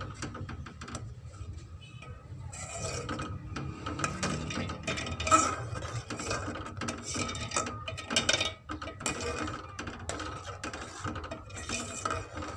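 Steel ladle stirring milk in a metal pot, scraping and clinking against the bottom and sides in quick, repeated strokes.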